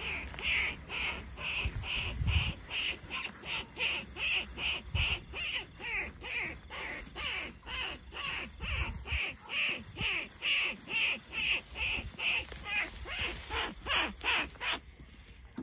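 A rat hunter's mouth call: short, high squeaks made against a cupped hand, repeated about two to three times a second, to lure rats out of the grass. The calling stops just before the end.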